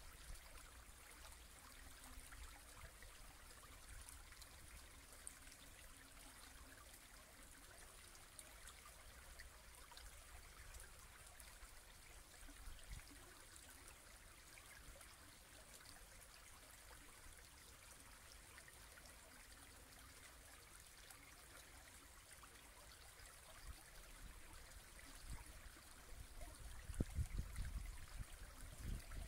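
Small woodland brook babbling over a shallow riffle: a faint, steady rush of running water. Near the end come a few louder low bumps and rumbles.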